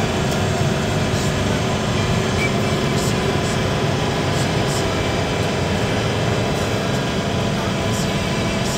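Steady engine drone and tyre-on-road noise heard from inside a van's cabin while it cruises at motorway speed, with a few faint light ticks.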